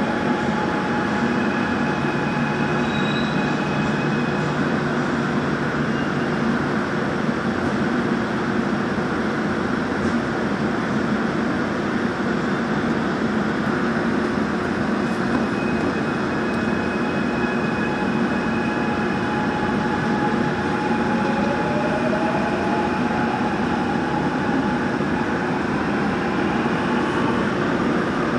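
Gwangju Metro Line 1 subway train, heard from inside the car, running through a station stop with a steady rumble and a few steady tones. In the last several seconds a whine rises steadily in pitch as the train pulls away and speeds up.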